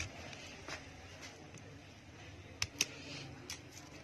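Several light, sharp clicks of small repair tools on a Nokia 5 phone as its display unit is pried loose, two of them in quick succession past the middle, over a faint steady background.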